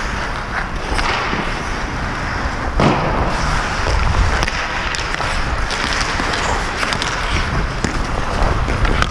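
Ice hockey skates scraping and gliding on rink ice, with a steady rush of noise and low rumble throughout. A single sharp knock comes about three seconds in, with a few lighter clicks.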